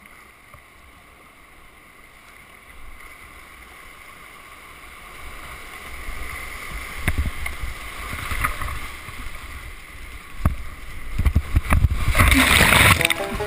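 Whitewater creek rushing around a kayak, getting louder, with sharp knocks and splashes from paddle strokes on the hull and water. A loud splash comes near the end, with low rumble on the microphone.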